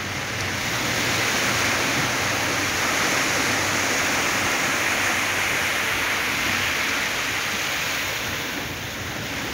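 Small waves breaking and washing up a sandy beach: a steady rush of surf that swells and eases.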